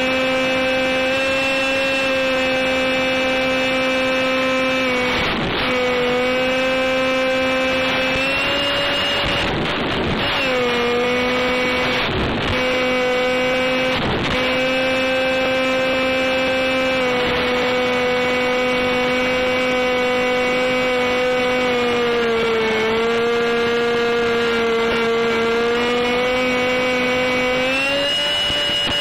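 Electric motor and propeller of a UM Stryker micro flying wing whining steadily, heard from onboard the plane. The pitch steps up about a third of the way in, sags for a few seconds late on and climbs again near the end, and several short crackles of noise cut through it in the first half.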